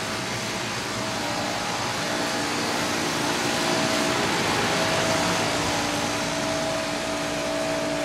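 Outdoor air-conditioner condensing units running, among them a 1999 Arcoaire 3-ton unit with a Copeland scroll compressor: the steady rush of the condenser fan over a steady compressor hum. A higher hum tone grows stronger about five seconds in.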